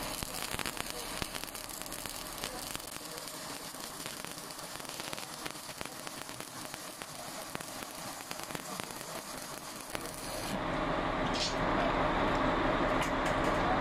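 Stick (shielded metal arc) welding on steel: the electrode's arc crackles and hisses steadily, then stops about ten seconds in as the arc is broken.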